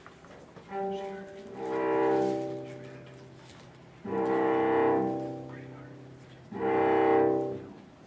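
Cello bowing long, low notes: a short quiet note, then three loud notes that each swell and fade over a second or two.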